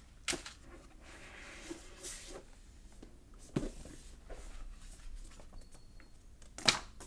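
Cardboard packaging being handled: a soft rustle of card sliding against card about a second in, and a few sharp taps and knocks as boxes are set down and picked up, the loudest near the end.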